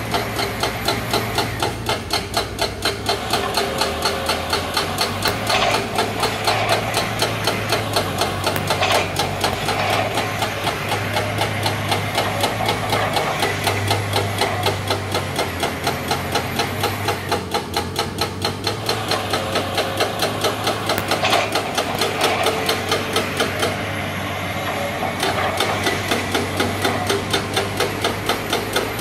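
Excavator running with a steady low hum and a regular knocking or clicking about three times a second.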